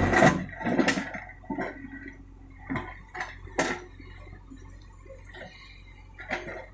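Scattered, irregular knocks and clatter over a faint low hum.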